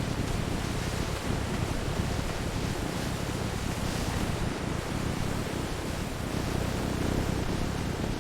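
Steady machinery rumble with an even hiss over it, no separate strikes or changes.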